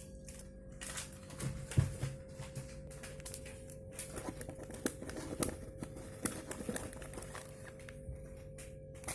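Packaging crinkling and tearing, with scattered clicks and taps, as a mystery box is opened by hand.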